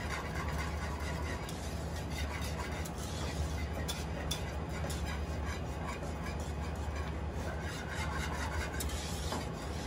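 Wire whisk being worked vigorously through thick, boiling chocolate pudding in a saucepan: a continuous stirring and scraping with small clicks of the wires against the pot. A steady low hum runs underneath. The pudding is being whisked at the boil until it thickens enough to coat a spatula.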